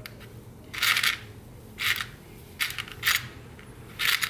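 Small plastic-insulated crimp connectors rattling and clicking in a clear plastic parts box as fingers sift through them, in short bursts about once a second.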